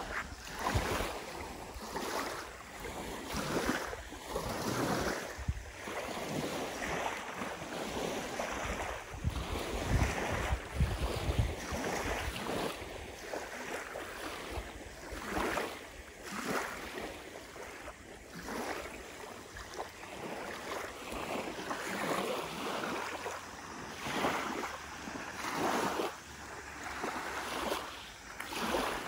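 Small lake waves lapping and washing up onto a gravelly shore, a swell every second or two. Wind rumbles on the microphone about a third of the way through.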